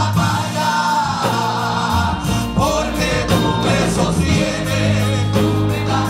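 A mixed group of men and women singing a gospel worship song together into microphones, with live band accompaniment including a steady bass line and a beat.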